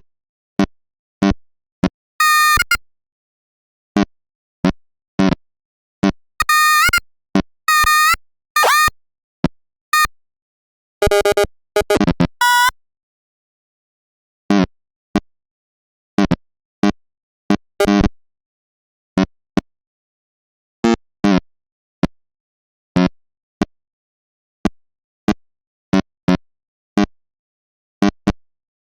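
A string of short, unrelated synthetic sound effects: brief pitched blips and plops, with a few longer clusters of higher tones, some bending in pitch. Each one cuts off abruptly, with dead silence between them.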